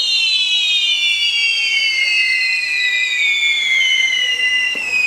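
Spinning firework wheels whistling: several high whistles glide slowly down in pitch together over the steady hiss of the spark showers.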